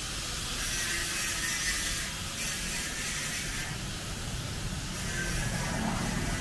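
A steady hiss with a low rumble beneath it, swelling slightly a few times: street noise of passing traffic.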